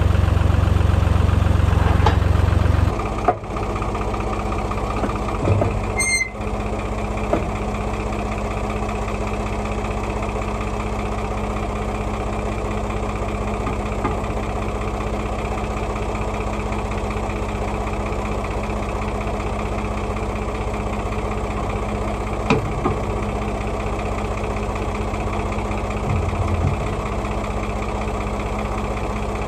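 Old farm tractor's engine running, then settling to a steady idle about three seconds in. A few short knocks sound over the idle.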